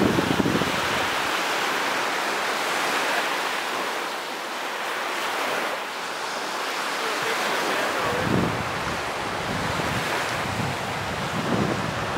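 Small surf washing steadily onto a sandy beach, with wind buffeting the microphone in low rumbling gusts about 8 seconds in and again near the end.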